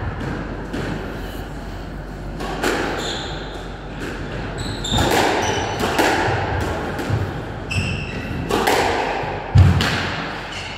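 Squash rally: the ball smacking off rackets and walls in a string of sharp hits, ringing in the hard-walled court, with shoes squeaking briefly on the wooden floor. A heavy thud, the loudest sound, comes near the end.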